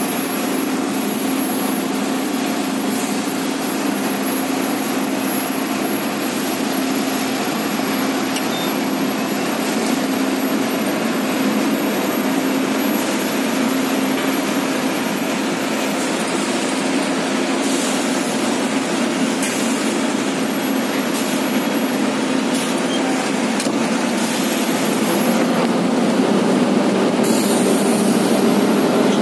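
Diesel engine of a tracked excavator running steadily with a low hum, growing a little louder over the last few seconds.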